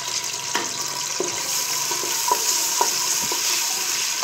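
Ginger and garlic paste sizzling in hot oil in a pressure cooker, stirred with a wooden spatula, with several short knocks of the spatula against the pot. The sizzle grows brighter about a second and a half in.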